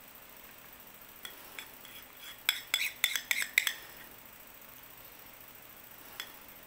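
A metal spoon clinking and scraping against a bowl as food is scooped out. Two light clinks come first, then a quick run of about seven sharper clinks in the middle, and one more near the end.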